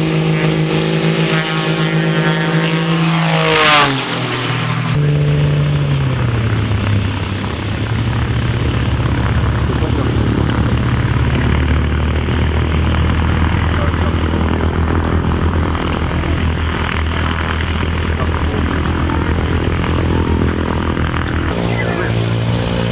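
Edge 540 aerobatic plane's propeller engine passing low and close, its pitch falling as it goes by about four seconds in. It then settles into a steadier, lower drone as it flies off and comes down to the runway.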